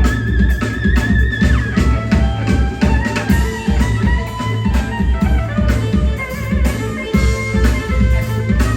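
A rock band playing live: electric guitar over bass and drum kit with a steady beat, no singing. A held guitar note near the start slides down after about a second and a half.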